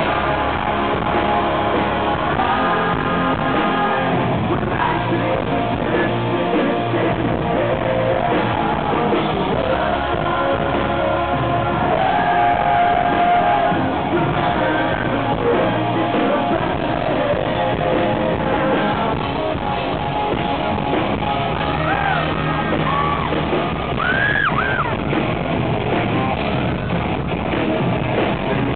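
Live rock band with electric guitars, the male lead singer belting and shouting the vocal into the microphone, heard from the audience in a large hall.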